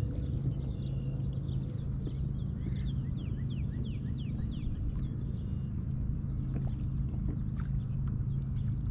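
A steady low hum, with birds calling over it: a run of quick, high, falling chirps, two or three a second, thickest in the middle.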